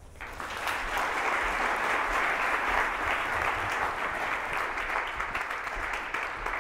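Audience applauding steadily, a dense patter of many hands clapping, welcoming a speaker to the stage.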